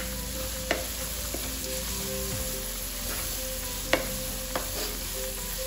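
Garlic, onion and carrot sizzling in hot oil in a pan as they are stirred, with a few sharp clicks of the stirring utensil against the pan, the loudest about four seconds in.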